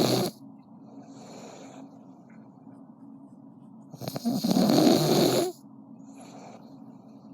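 Snoring in slow cycles: the tail of one loud snore right at the start, a second loud snore about four seconds in lasting about a second and a half, and faint breaths between them.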